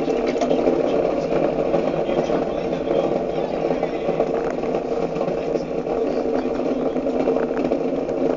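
Electric potter's wheel running with a steady motor hum while clay is centred on it.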